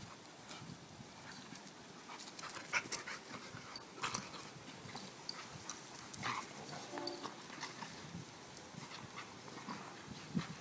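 An Alaskan malamute and an American Staffordshire terrier play-fighting: panting, scuffling and short thuds as they tussle on grass, with a short whine about seven seconds in.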